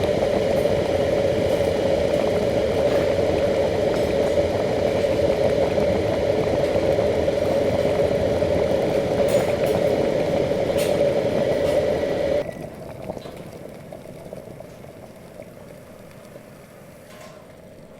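Electric kettle at a full boil, a steady rumbling hiss of water; about twelve seconds in it cuts off suddenly as the kettle switches off, and the last bubbling fades away.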